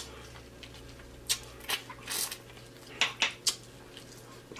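Close-miked chewing and lip smacking of a mouthful of food: a string of short, irregular smacks and clicks.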